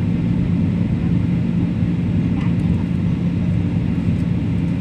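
Airliner cabin noise in flight: a steady, even drone of engines and rushing air with a constant low hum underneath.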